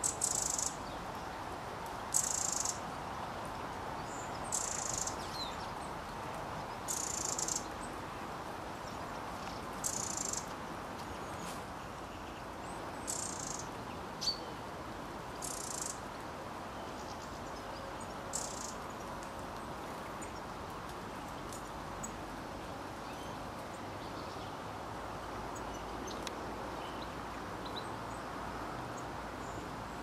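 A small songbird singing a short, very high-pitched phrase about every two to three seconds, which stops a little past halfway through. A steady background hiss lies underneath.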